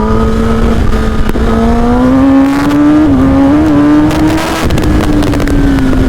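Kawasaki ZX-10R inline-four with an Akrapovic full-system exhaust running under light throttle while riding, its pitch climbing gradually, then easing off a little near the end, over low wind rumble.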